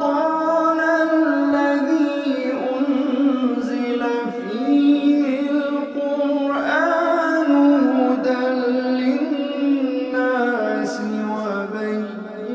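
A single voice singing or chanting melodically with no instruments, in long held notes with ornamented bends in pitch.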